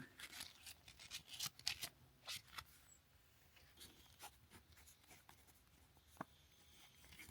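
Faint rustling and scraping from small objects being handled: a run of short strokes in the first couple of seconds, then near silence with one light tick about six seconds in.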